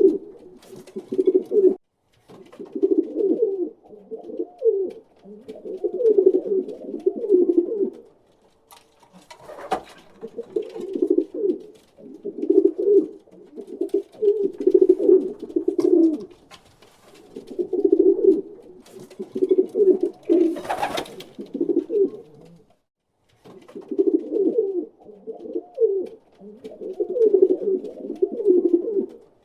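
Pigeons cooing: low, throaty coo phrases repeated over and over, with short pauses between them and a couple of brief sharp noises in between.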